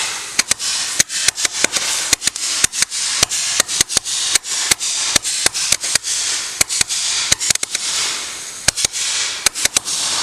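Firework fountain spraying sparks, hissing steadily and crackling with a rapid, irregular string of sharp pops; the hiss eases briefly about eight seconds in.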